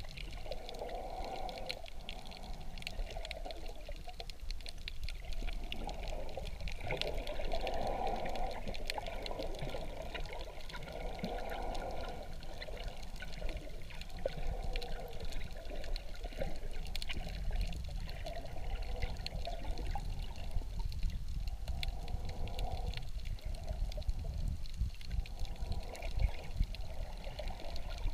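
Water heard through a submerged camera's waterproof housing: a muffled rushing wash that swells and fades every few seconds, over a low rumble and a constant fine crackle of clicks.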